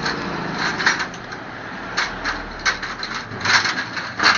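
Irregular clinks and clatters of metal tools and engine parts being handled on a motorcycle engine, five or so short knocks a second or less apart, over a steady low hum.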